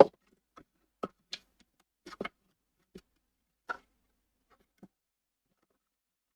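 Scattered light clicks and taps of small tools and parts being handled on a workbench during circuit-board repair, about ten separate ticks with silence between, the sharpest right at the start.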